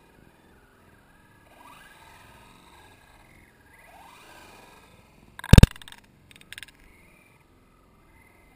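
Faint whine of an RC truck's electric motor, sliding up and down in pitch twice. A single sharp knock comes about five and a half seconds in, followed by two softer clicks.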